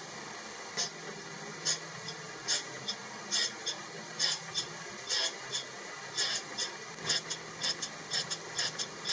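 Surface grinder wheel grinding the end of a hardened high-speed steel blank: a short gritty hiss each time the wheel passes over the steel, over the steady hiss of the running machine. The passes come about once a second at first and quicker, two or three a second, in the second half.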